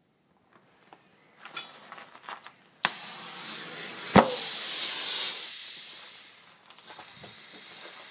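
Compressed air hissing from an air hose as a tyre on a steel wheel rim is inflated, starting with a click just under three seconds in. A sharp pop comes about four seconds in, and the hiss is loudest just after it, then drops off and carries on more quietly.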